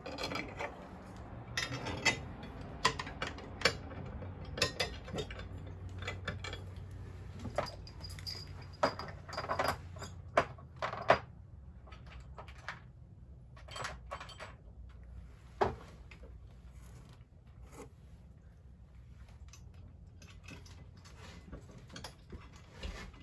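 Steel backer plate and nuts clinking and clicking against the anchor's bolts as they are fitted by hand: a run of sharp metal clicks that thins out after about eleven seconds.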